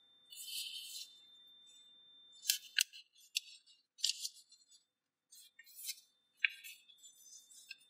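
Sheet of paper being folded and creased by hand: irregular crisp rustles and sharp crackles, with a few louder snaps about two and a half seconds in and again near four and six and a half seconds.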